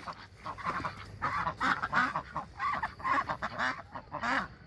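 A flock of ducks quacking: a rapid, overlapping chatter of short calls.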